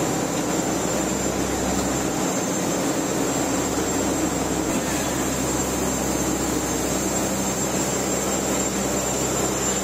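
Steady drone of a fishing boat's engine machinery running at sea, with a thin high whine over it.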